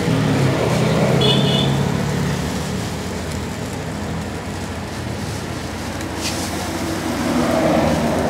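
Steady road traffic noise, with a passing engine's hum that fades after about two seconds.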